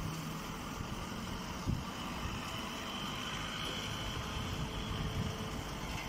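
Straw baling machine running steadily: an even low mechanical hum, with a faint high whine in the middle.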